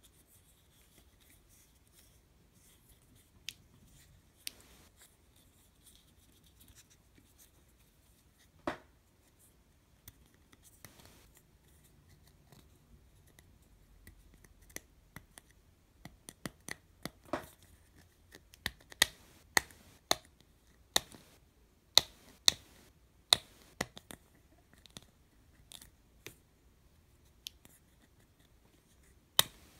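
Sharp plastic clicks from a gashapon vending-machine capsule being pried at by fingernails, its two plastic halves snapping against each other at the seam. A few scattered clicks at first, then a quicker run of louder clicks, about one a second, through the second half.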